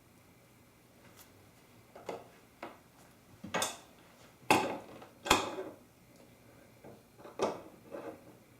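A series of separate clinks and knocks of tools and metal parts on a Moen two-handle kitchen faucet as the nut is screwed back on over a new 1224 cartridge. The two loudest knocks come about halfway through.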